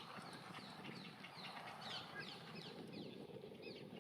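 Grey heron chick begging for food from inside its nest: a faint, rapid series of short falling chirps, a few a second, over a steady background hum.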